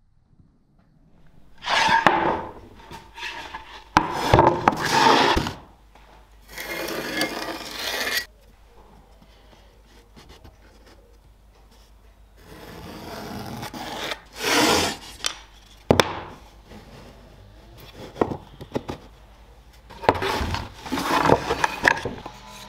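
Wood being slid and rubbed across a workbench: about five separate scraping bursts, each a second or two long, as a plywood sheet and oak offcuts are handled. A single sharp click comes about 16 seconds in.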